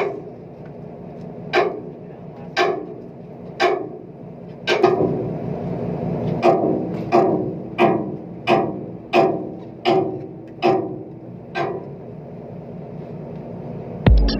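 A series of sharp knocks, about one a second, coming faster and more evenly in the second half, over a low steady hum.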